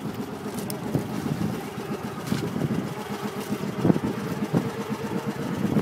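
Engine of a motorized outrigger boat (bangka) running steadily, heard from on board over a rush of wind and water noise.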